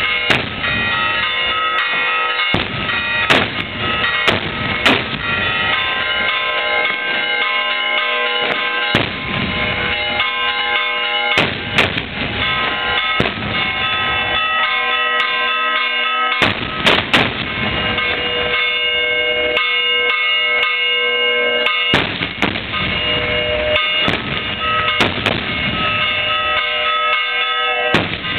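Church bells pealing for Easter, ringing on continuously, while homemade dynamite charges and firecrackers go off in loud bangs at irregular intervals, sometimes two in quick succession.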